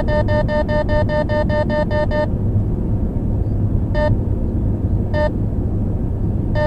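Radenso Pro M radar detector sounding a Ka-band (34.7 GHz) alert: a fast run of about six beeps a second that stops a little over two seconds in, then single beeps more than a second apart. Steady road and engine rumble runs underneath from inside the moving car.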